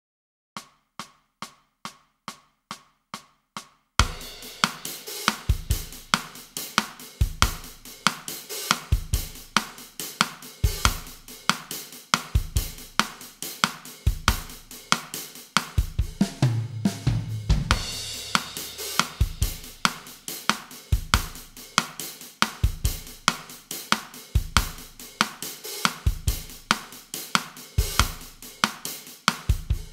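Drum kit playing a bossa nova groove at 140 bpm. It opens with eight evenly spaced count-in clicks, then the groove starts about four seconds in with bass drum, hi-hat and cymbal. About sixteen seconds in there is a heavier fill, followed by a bright cymbal wash.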